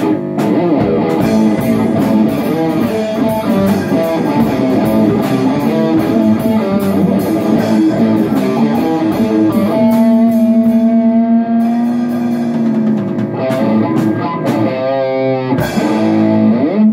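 A small rock band playing live on electric guitars and a drum kit. About ten seconds in, the busy playing gives way to a long held note, then picks up again, with a note sliding upward near the end.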